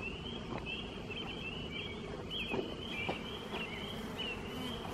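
Honeybees buzzing faintly around an open-air bee yard, under a steady chorus of short, repeated high chirps.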